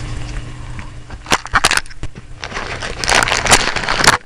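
Packaging being handled while items are taken out of a camcorder box: crinkling and rustling with sharp clicks, loudest in a dense stretch near the end that stops suddenly. A steady low hum runs underneath.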